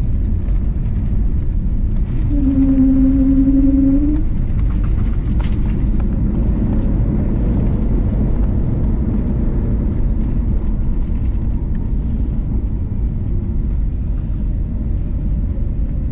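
Airliner cabin noise during landing: a steady low rumble of jet engines and airflow. A steady hum with one overtone sounds for about two seconds near the start, slightly rising as it ends.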